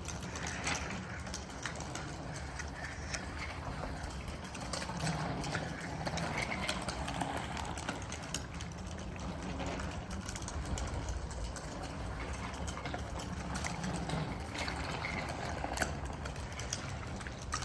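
Light rain outdoors: a steady hiss with scattered small drop-like ticks.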